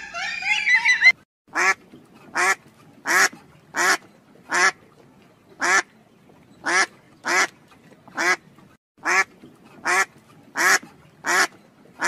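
Mallard duck quacking: a steady series of about fourteen short quacks, roughly one every 0.7 seconds. In the first second, brief rising squawking calls from another bird come first.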